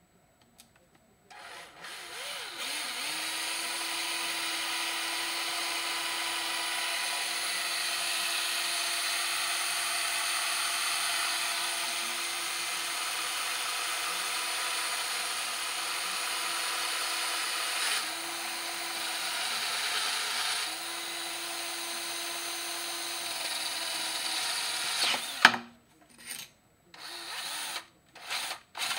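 Handheld electric drill spinning up and running steadily while drilling a hole, its motor tone dipping briefly twice. It stops with a sharp knock near the end, followed by a few short clatters.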